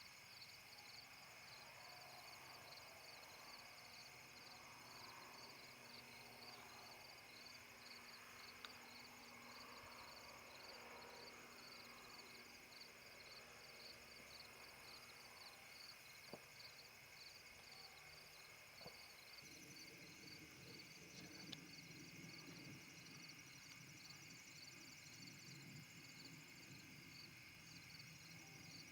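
Faint outdoor insect chorus: crickets chirping in a steady rhythm of about two chirps a second over a constant high-pitched trill. A faint low rumble joins about two-thirds of the way through.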